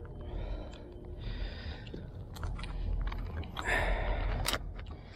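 Rustling and scraping handling noise close to the microphone, with a few sharp clicks and a louder rush of noise about four seconds in.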